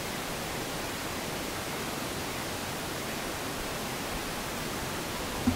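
A steady, even hiss of background noise with no distinct sound in it, and a brief low thump right at the end.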